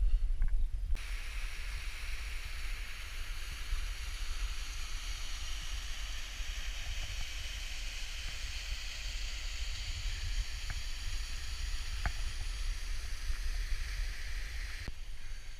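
Steady rushing hiss of a small waterfall splashing onto rocks. It starts abruptly about a second in and cuts off near the end, over a low rumble.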